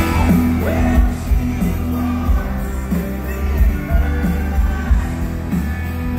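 A live pop-rock band playing loudly, a lead singer's voice over electric guitars, bass and drums, heard from the crowd in a large arena.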